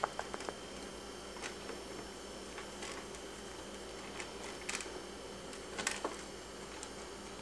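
Scattered small clicks and scratches from pet rats moving about a wire cage and being handled, heard over a steady background hum.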